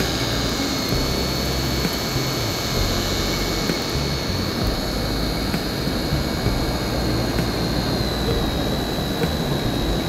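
Huina remote-control toy excavator's electric motors whining as it works on sand: a steady high whine that sinks slightly in pitch over several seconds, over a low rumbling noise.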